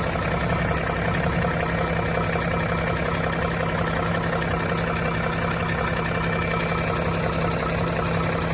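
Range Rover 3.0-litre engine idling steadily with a knock from the vibrating drive-belt tensioner. The cause is the alternator's overrunning clutch seizing and no longer slipping, which sends jerks through the belt that the tensioner keeps jumping to take up.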